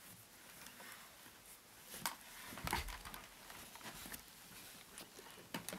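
Handling noises as a loop station is moved: scattered clicks and rustles, with a sharp click about two seconds in and a soft thump just after.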